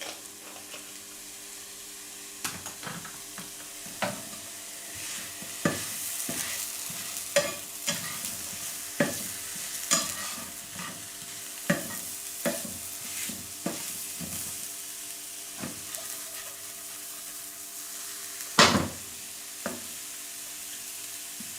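Mushrooms sizzling in a frying pan, a steady hiss, with irregular sharp taps and knocks of kitchen utensils over it and one louder knock near the end.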